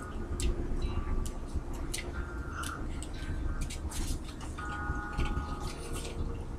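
Chimes tinkling: scattered light clicks and several short ringing tones, over a steady low rumble.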